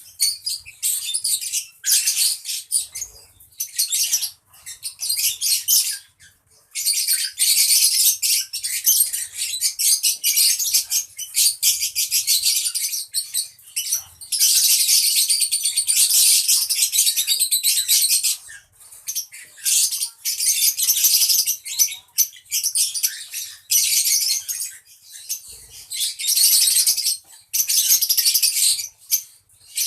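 A group of violet-blue lovebirds chattering: shrill, rapid high-pitched chirps coming in bouts of a few seconds with short pauses between.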